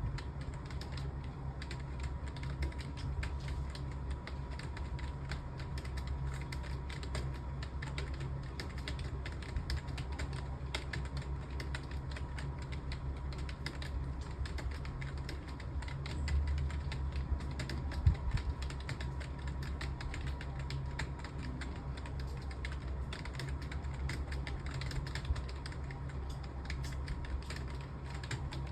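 Rapid, continuous typing on a computer keyboard, an uneven stream of key clicks over a steady low hum, with one sharper, louder knock about two-thirds of the way through.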